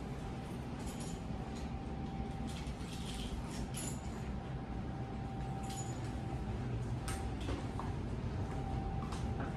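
Indoor room tone: a steady low hum with a faint, thin steady tone above it, broken by a scattering of light clicks and taps.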